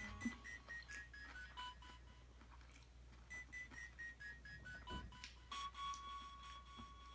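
Faint background music: a short melody of clean beeping notes stepping down in pitch, played twice, then one held note.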